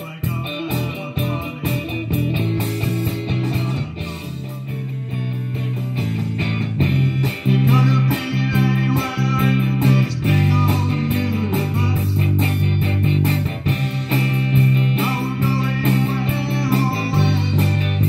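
Live rock band playing: electric guitar and bass guitar through amplifiers over a drum kit. The bass and overall volume build up about a third of the way in.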